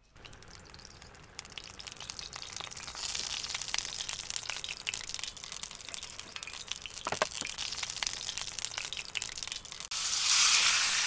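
Food sizzling and crackling as it fries in hot oil. It grows louder over the first few seconds, and a louder, brighter hiss starts about ten seconds in.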